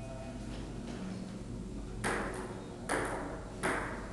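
Table tennis ball bouncing three times: sharp, ringing clicks, each a little under a second after the last, in the second half.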